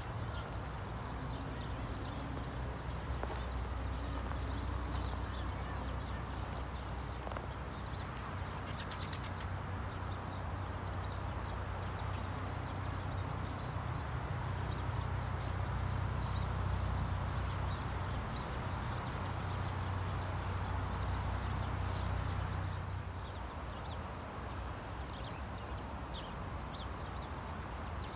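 Birds chirping and calling, many short high calls scattered throughout, over a steady low rumble.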